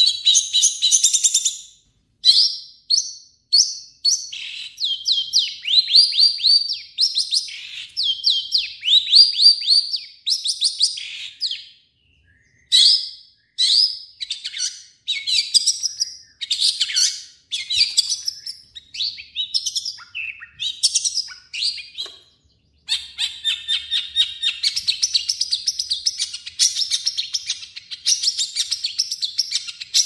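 Long-tailed shrike (cendet) singing a fast, varied song of short chattering and whistled phrases that weaves in imitations of other birds' calls. The song breaks off briefly twice and ends in a long, dense run of rapid notes.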